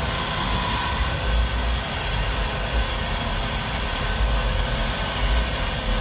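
Harbor Freight Badland 2500 12-volt electric winch running steadily under load, its motor and gear train reeling in the steel cable at slow speed. A loud, even mechanical drone with a low, uneven rumble beneath it.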